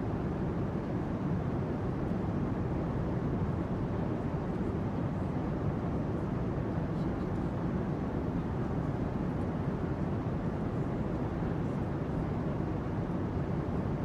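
Airplane cabin interior noise: a steady, even low rush with nothing standing out and no changes.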